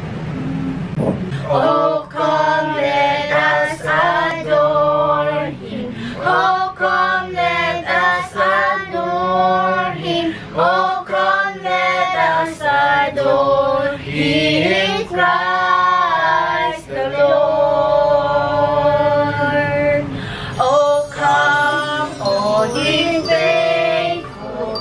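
A family of adults and children singing a Christmas carol together, starting about a second and a half in, with long held notes.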